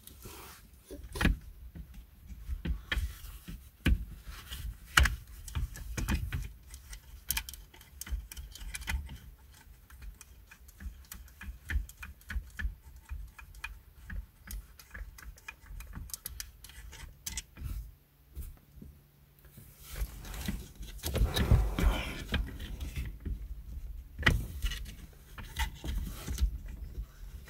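Irregular clicks, taps and knocks of a hard plastic headrest-mount bracket and its small parts being handled and worked loose on the seat's metal headrest posts, busier and louder about twenty seconds in.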